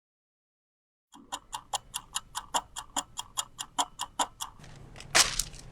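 Fast, even clock-like ticking, about five ticks a second for some three seconds, followed near the end by a short loud rushing sound.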